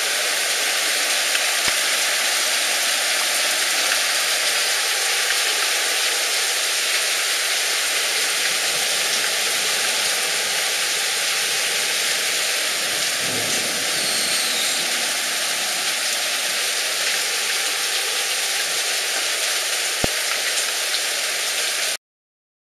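Heavy rain pouring down in a thunderstorm: a steady, dense hiss, with a brief low rumble about thirteen seconds in. It cuts off abruptly near the end.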